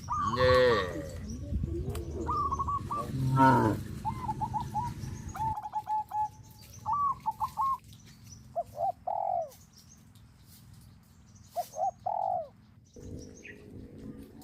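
Farm animal and bird calls. Two loud, arching calls come in the first four seconds, then a run of short repeated chirping notes and several falling calls over a quieter background. A steady low hum sets in near the end.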